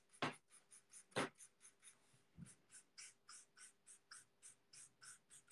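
Felt tip of a Stampin' Blends alcohol marker scratching on paper in quick, short back-and-forth colouring strokes, about five a second and faint, with two louder scuffs in the first second and a half.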